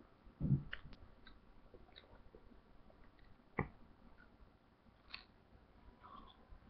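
Faint mouth and hand noises close to the microphone: a soft low thump about half a second in, a sharper click a little past the middle, and scattered small clicks.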